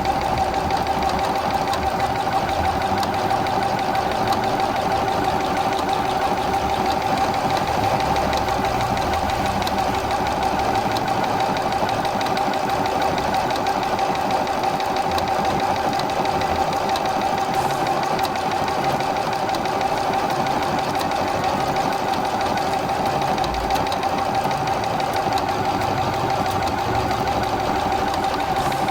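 Juki Allowne computerized sewing machine running continuously as it stitches cursive lettering, a steady motor whine over the rapid chatter of the needle mechanism.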